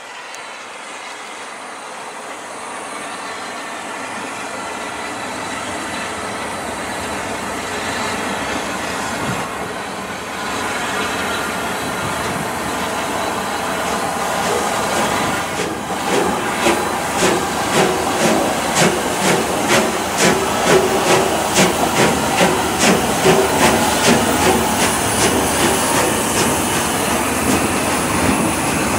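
Steam-hauled train (Bulleid Pacific locomotive and carriages) approaching and growing steadily louder, with a hiss. From about halfway through, its wheels click over the rail joints in a steady clickety-clack, roughly one and a half beats a second, as the carriages pass.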